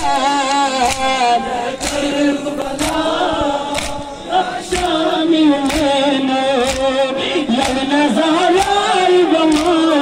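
A crowd of men chanting an Ashura mourning lament (nauha) together in one melody. They beat their chests in unison about once a second, each sharp slap keeping time with the chant.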